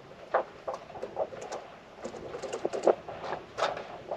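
Water lapping and trickling against a slow-moving sailboat's bow: an irregular patter of small splashes and ticks.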